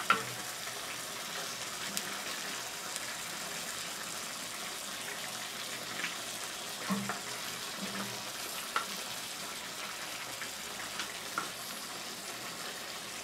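Steaks and braising liquid simmering and sizzling in a cast-iron Dutch oven over charcoal: a steady hiss. A few soft knocks come from a wooden spatula on a plate as the steaks are laid in.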